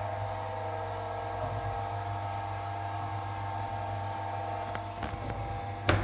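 Kolbe MW52-120 mixer-grinder's three-phase electric motor running with a steady hum and whine. A sharp click comes near the end, after which the sound begins to fade.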